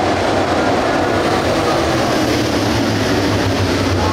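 A pack of dirt-track race cars with GM 602 crate V8 engines running together around the clay oval, a loud, steady wall of engine noise.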